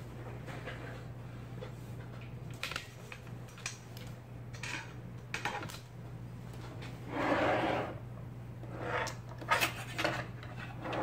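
IBM Selectric golf-ball typewriter mechanism working in irregular clacks and short rattles, over a steady low hum, during a repair test. A few louder clatters come in the second half.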